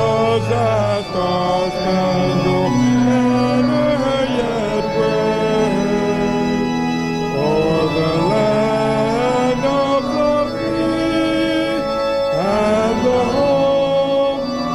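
Congregation singing a hymn with sustained keyboard accompaniment, the chords held and changing every few seconds.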